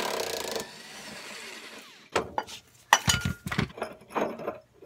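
Power tool spinning out a long 18 mm body-mount bolt, cutting off about half a second in and winding down. About two seconds in come irregular metallic clinks and knocks, with one brief ringing note, as the bolt is worked loose and pulled from the mount.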